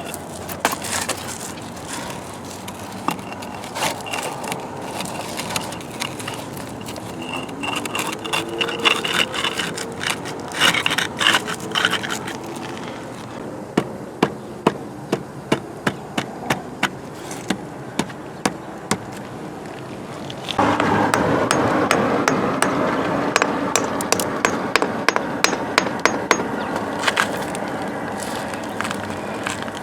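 Stones and old mortar of a rock wall being knocked and scraped during repair: a run of sharp knocks, about two a second through the middle. About two-thirds of the way in, a steady rushing noise starts underneath the knocks.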